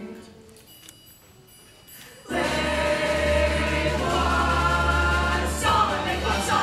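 A short quiet lull, then a musical-theatre ensemble of voices breaks into song with accompaniment about two seconds in, continuing loudly.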